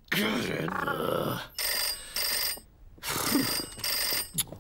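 Desk telephone bell ringing in the British double-ring pattern: two short rings, a pause, then two more. It starts about a second and a half in, after a brief mumbled vocal sound.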